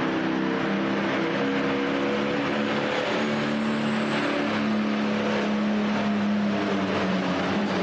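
Turbocharged diesel engine of a limited super stock pulling tractor running hard and steady. About halfway in, a thin high turbo whine comes in and climbs in pitch as the tractor begins its pull.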